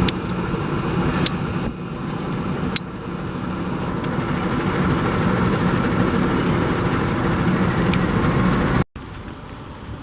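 A train running past: a steady loud rumble with a couple of sharp clicks from the wheels and cars. It cuts off abruptly near the end, leaving quieter wind noise.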